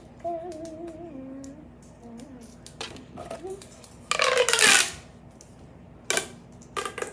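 Small plastic fidget toys being handled, with scattered light clicks and a short rattling clatter about four seconds in, the loudest sound. A child hums briefly near the start.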